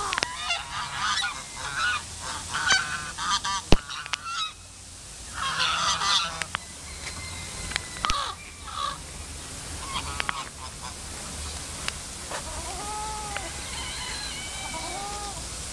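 Pond waterfowl honking in a run of calls through the first half, then a few short, arched honks near the end. A couple of sharp clicks are heard as well.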